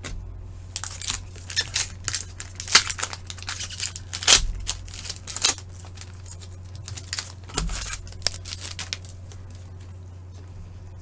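Foil wrappers of Upper Deck hockey card packs being torn open and crinkled by gloved hands, in quick irregular crackles. There are two bouts, the second about halfway through, over a steady low hum.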